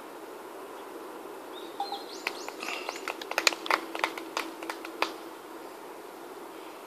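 Birds chirping: a flurry of quick, sharp notes and short rising and falling chirps between about one and a half and five seconds in. Under it runs a steady faint hum.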